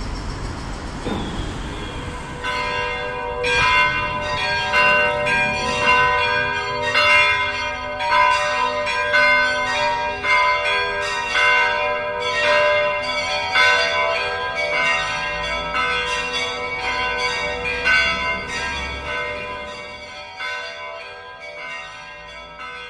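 Bells rung in quick, even succession, about two strikes a second, each strike ringing on into the next; the ringing fades away over the last few seconds. A low street-traffic noise at the start fades out as the bells begin.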